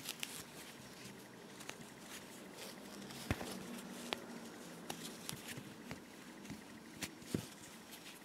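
Faint rustling of wool yarn and a metal crochet hook working tight single crochet stitches, with a few short, sharp ticks scattered through.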